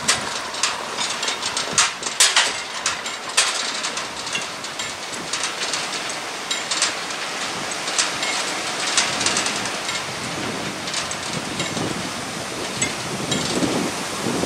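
Crank-operated mechanical level-crossing barriers rising: irregular clicking and rattling from the barrier drives, densest in the first few seconds and thinning out, over a steady hiss.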